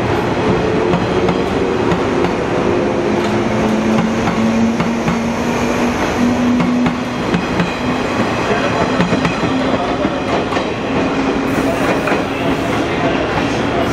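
JR East 115 series electric multiple unit pulling out, its traction motors whining in a slowly rising pitch as it gathers speed, over the rumble of its wheels on the rails.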